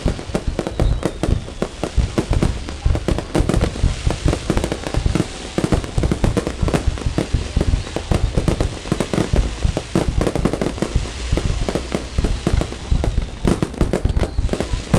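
A fireworks display going off continuously: many overlapping bangs and crackling aerial shells in a dense barrage.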